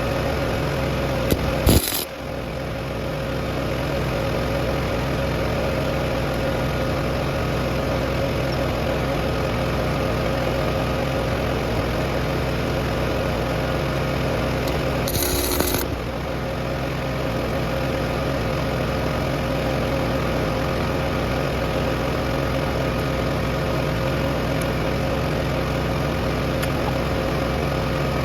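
A steady machine running with a low hum. About two seconds in and again about fifteen seconds in, there is a short sharp crackle, and the running noise briefly drops and then builds back up.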